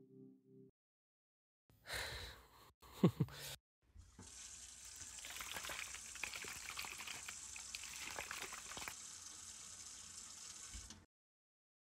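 A tap runs into a bathroom washbasin for about seven seconds, with splashing as water is scooped over the face, and shuts off abruptly near the end. Before the water starts there are two brief sounds, the louder a short sharp one about three seconds in.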